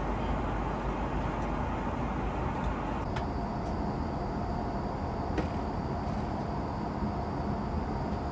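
Steady airliner cabin noise inside an Airbus A330 during descent: the even rumble and rush of engines and airflow. A faint steady high tone joins about three seconds in, with a couple of light clicks.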